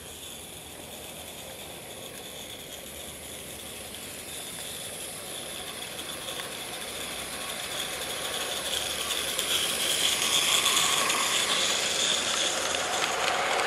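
A G scale live-steam locomotive and its wagons running along garden railway track, growing steadily louder as the train approaches and passes close by.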